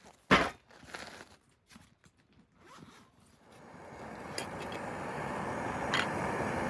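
A zipper pulled in one quick rasp about a third of a second in, with a few smaller scrapes after it; a steady hiss of outdoor noise then swells in from about halfway.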